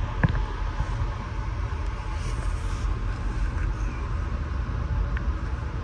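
Steady low rumble of a Bud-built stainless steel passenger coach rolling along the track, heard from inside the car, with a sharp click just after the start.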